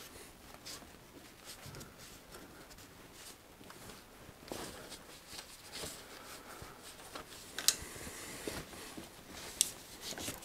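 Cloth rag wiping down a bicycle's suspension fork: faint, uneven rubbing and scuffing, with two sharp clicks in the second half.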